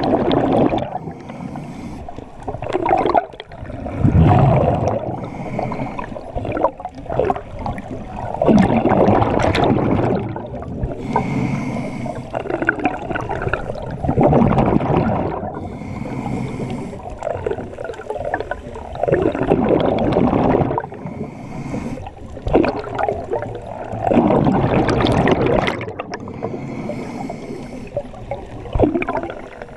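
Scuba regulator breathing heard underwater: a hissing inhale through the regulator, then a gurgling rush of exhaled bubbles, repeating about every five seconds.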